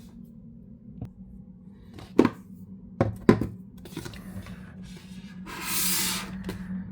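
Handling sounds of objects on a hard surface: three sharp knocks about two and three seconds in, then a short rubbing or sliding sound near the end, over a low steady hum.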